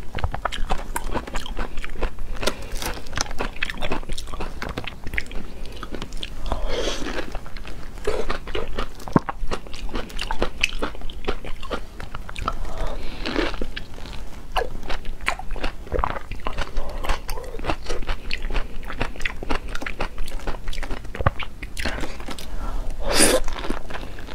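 Close-up mouth sounds of eating a soft, juicy thawed frozen peach: biting, sucking and chewing, with many small wet clicks and a few louder sucks, the loudest near the end.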